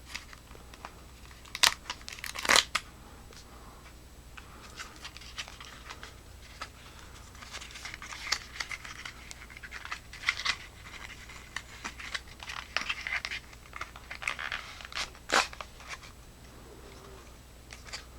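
A flashlight's retail packaging being opened and handled: crinkling, rustling and tearing, with scattered sharp clicks and taps.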